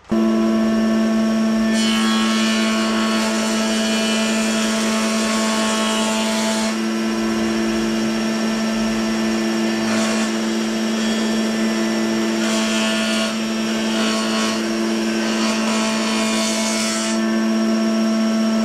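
Small table spindle moulder running with a steady hum while its cutter cuts a rebate in an oak frame piece. The cutting noise swells several times as the wood is pushed along the fence.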